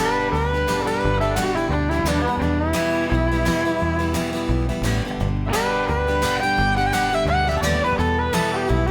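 Country string band playing a song's instrumental intro: acoustic guitar strumming a steady rhythm under a fiddle melody that slides between notes.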